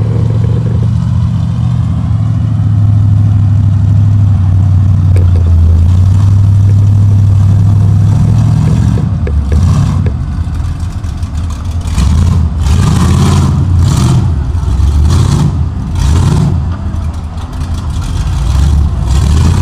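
Lifted Chevy mega truck's engine running loud and steady, then revving up and back off in repeated bursts from about nine seconds in as it pulls through the mud.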